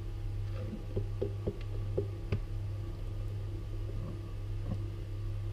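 Flour being poured from a glass bowl into a food processor's plastic bowl, with a few light taps, over a steady low hum.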